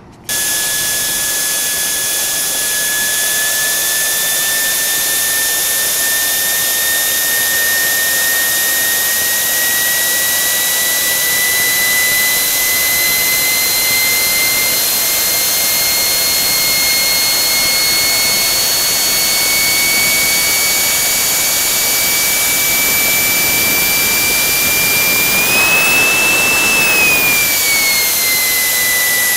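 JetJoe 1400 model jet turbine engine running at about three-quarter throttle: a loud rush with a high whine that comes in suddenly at the start and creeps slowly upward in pitch. Near the end the whine rises briefly and then falls back.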